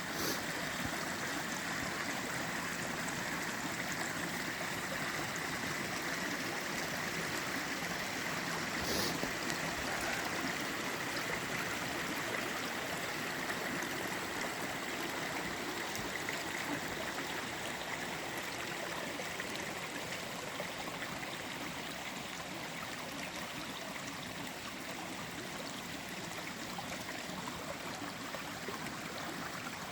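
Creek water flowing steadily over rocks, a continuous rushing babble, with a single faint click about nine seconds in.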